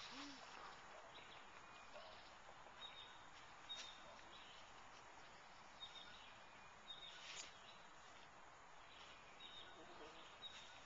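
Near silence: faint outdoor ambience with brief high bird chirps now and then.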